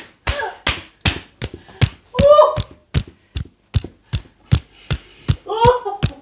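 Hands slapping skin in a percussive massage, sharp slaps at about two to three a second, with two short voice sounds, one about two seconds in and one near the end.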